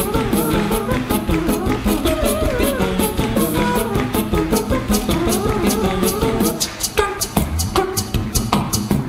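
Improvised live-looped reggae-polka music: a steady beatboxed rhythm under layered, wavering vocal melody lines. After about seven seconds the melody thins and the sharp beatbox strokes stand out.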